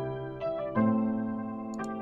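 Electric piano music playing sustained chords, with a new chord struck about three-quarters of a second in. Two short clicks sound near the end.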